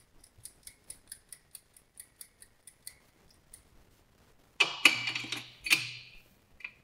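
A run of light, even clicks, about four a second, while a motorcycle chain adjuster assembly is handled. Then, from about four and a half seconds in, loud rough scraping as the metal adjuster block is forced into the end of the square swingarm tube, a snug fit.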